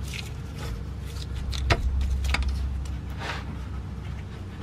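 Metal tool clinks and knocks as a breaker bar is fitted onto a socket extension seated in a rusted differential drain plug, several sharp taps with one louder knock in the middle, over a steady low hum.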